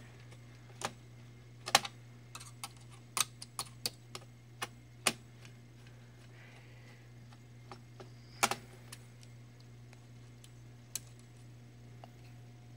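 Irregular sharp clicks and taps of a screwdriver working out the heatsink screws on an IBM ThinkPad R31 laptop, metal tool on small screws and the laptop's plastic and metal frame, over a faint steady low hum.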